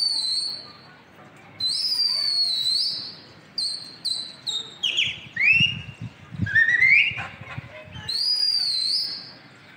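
A pigeon flyer's loud human whistles to his circling flock: a string of sharp, high whistles, some long and wavering, one falling and one rising in pitch.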